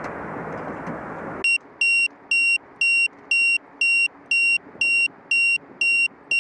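A steady rushing noise that cuts off abruptly about a second and a half in, followed by high-pitched electronic beeping at about two beeps a second, loud and even.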